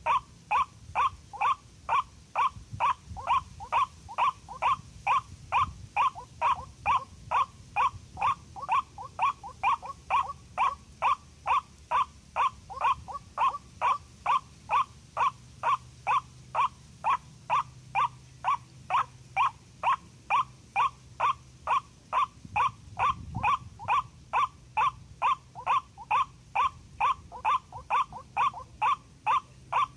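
White-breasted waterhen (ruak-ruak) call, a short note repeated evenly about two or three times a second without a break: the lure call used to draw the bird into snares.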